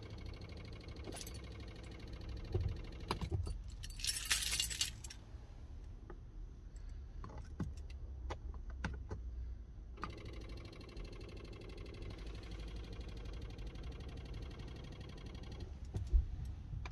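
A Hyundai Santa Fe that will not start on a flat battery: keys jangle and click at the ignition, with scattered sharp clicks and a loud rattling burst about four seconds in, over a steady low hum. The engine never catches.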